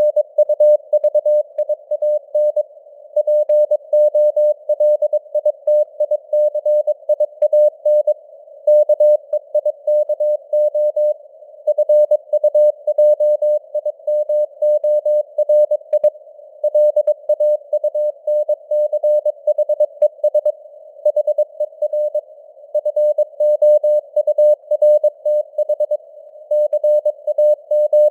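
Morse code (CW) sent at 22 words per minute: a single steady tone keyed on and off in quick dots and dashes, with short gaps between words. Under it runs a narrow band of simulated radio hiss, and the signal strength fades up and down (QSB).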